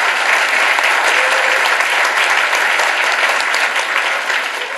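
Audience applauding, a dense, steady clapping from many people that thins slightly near the end.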